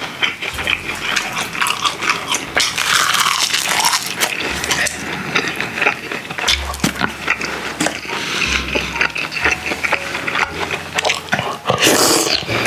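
Close-miked chewing and wet mouth sounds of a person eating rice and soft tofu stew, with many small clicks and smacks. Near the end comes a louder slurp as a spoonful of stew goes into the mouth.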